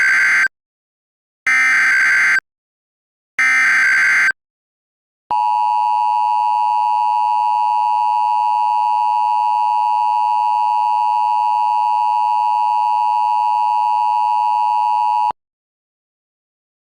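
Emergency Alert System header: three one-second bursts of SAME digital data tones about a second apart, then the steady EAS attention-signal tone held for about ten seconds before it cuts off.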